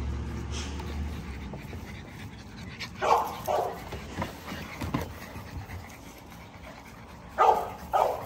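Puppies panting as they jump up and play, with short louder bursts about three seconds in and again near the end.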